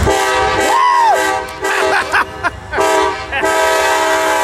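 Amtrak diesel locomotive's multi-chime air horn sounding a chord in three blasts, the last the longest.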